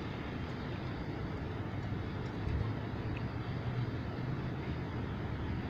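Steady low rumble and hiss of outdoor background noise, like engines running nearby, with no distinct events.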